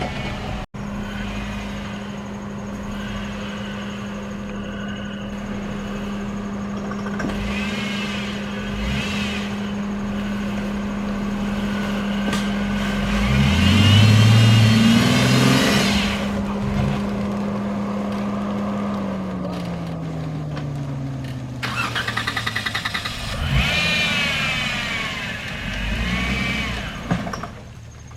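Jeep engine running on an off-road trail, revved up about halfway through with its pitch rising, then the steady hum dropping lower in pitch near the end.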